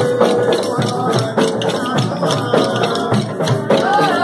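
Live bumba-meu-boi street music: large frame drums and rattles beaten in a steady rhythm, with voices singing over them.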